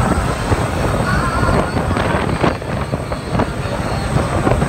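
Wind buffeting the phone's microphone on the open deck of a fast-moving jet boat, a loud, gusty rumble, with the boat's running noise mixed in underneath.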